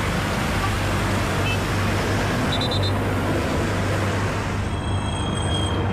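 Steady city traffic noise with a car driving through, a low engine hum underneath. A couple of brief high tones come through near the middle and again near the end.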